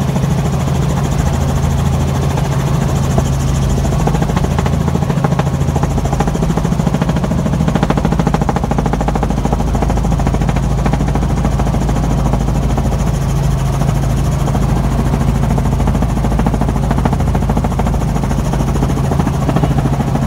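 Helicopter cabin noise in flight: the rotor and engine running steadily, a loud even drone with a constant low hum and a fast fine pulsing throughout.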